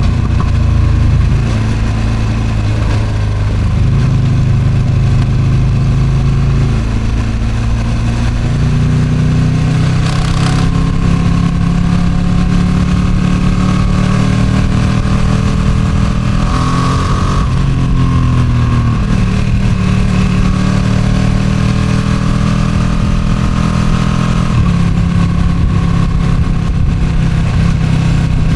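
Ducati Streetfighter V2's 955 cc L-twin on its stock exhaust, heard while riding at expressway speed: the engine note climbs and falls as it pulls and eases off, with a few gear changes. Wind rushes over the microphone, strongest about ten seconds in and again around seventeen seconds.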